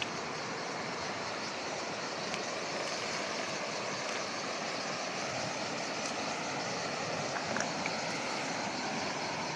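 Fast-flowing river rushing over rocks and rapids: a steady wash of water noise, with a few faint clicks.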